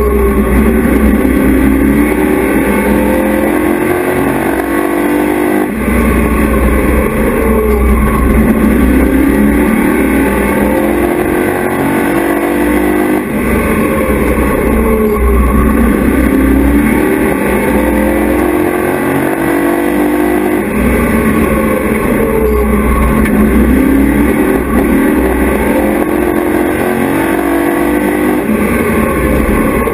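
Race truck's engine heard from inside the cab, running hard, its pitch climbing and then falling off in a repeating cycle about every seven to eight seconds as it laps the track.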